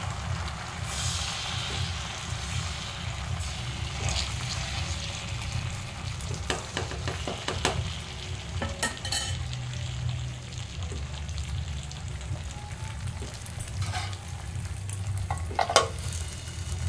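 Thin rice-flour batter sizzling in a hot frying pan as it is spread around with the back of a bowl, with scattered light scrapes and clicks. Near the end a steel lid is set down over the pan with a sharp knock.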